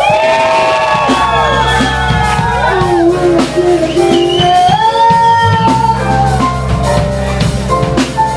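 Live band music: an electric bass and a drum kit, with a lead melody that slides up and down in pitch over them.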